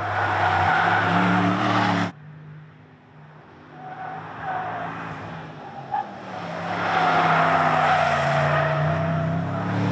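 2021 Porsche Panamera driven hard on a track: the engine runs at high revs while the tyres squeal through the corners. The sound cuts off abruptly about two seconds in, stays quieter for a few seconds, then builds to a second loud pass with tyre squeal near the end.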